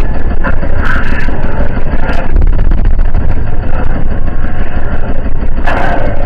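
Car audio subwoofers playing very loud, heavy bass near full volume, with a few short brighter noises about a second in, at two seconds and near the end.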